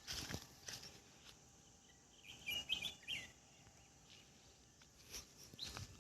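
Faint rural outdoor ambience with a short burst of bird chirps about halfway through, and a few soft knocks near the start and end.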